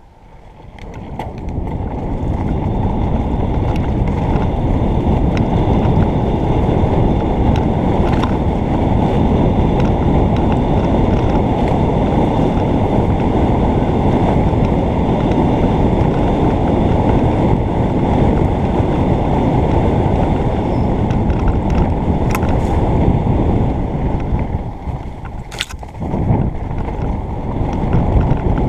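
Wind rushing over a helmet-mounted camera's microphone as a mountain bike picks up speed downhill, mixed with the rumble of the bike over the dirt trail. The noise builds over the first couple of seconds, holds steady with a few sharp knocks, and eases briefly near the end as the bike slows.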